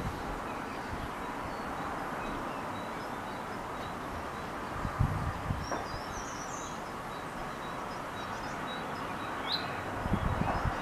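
Outdoor ambience: a steady rushing background noise, with faint, short high-pitched bird chirps now and then, a little cluster midway and a sharp single call near the end. A couple of low dull bumps sound about halfway and near the end.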